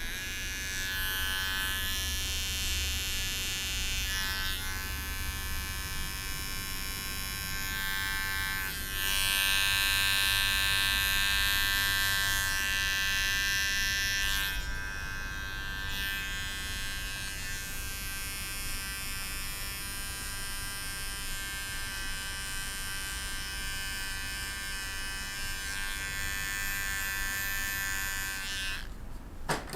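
Electric hair clippers buzzing steadily while trimming short hair, louder for a few seconds around the middle, and switched off near the end.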